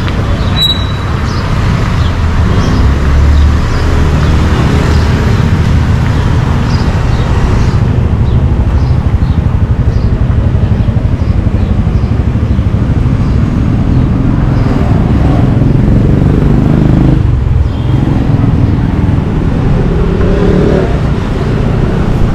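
Loud, steady street noise of road traffic running, mostly a low rumble.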